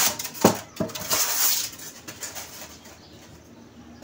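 GK-V20 full-metal Glock-style airsoft pistol firing at a CD target: a sharp crack about half a second in, a smaller knock just after, then a brief noisy rattle.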